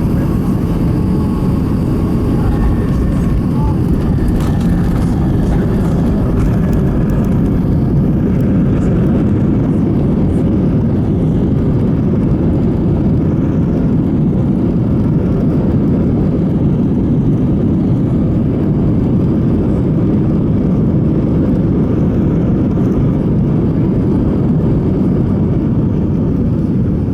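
Steady cabin rumble of an Airbus A320 rolling on the runway after landing: engine and airflow noise, loud and even throughout.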